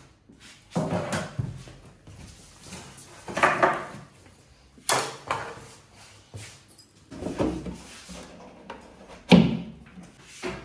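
Wooden cabinet panels being handled: half a dozen separate knocks, bumps and short scrapes, the loudest near the end.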